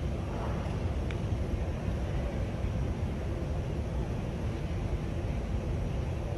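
Steady low rumble of background noise in a large sports hall, with one faint click about a second in.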